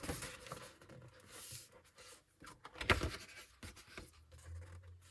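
Paper rustling as the pages of a photo book are handled and turned, with a sharp tap about three seconds in.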